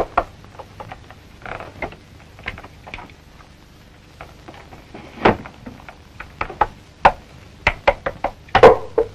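Scattered knocks, clicks and clunks of a small wooden keg being handled and its end or lid worked by hand, with louder knocks about five and seven seconds in and a cluster near the end.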